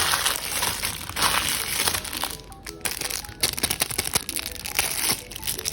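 Plastic packaging being crinkled and crackled as it is handled and opened: two long rustling stretches in the first two seconds, then a run of sharp crackles. Background music plays under it.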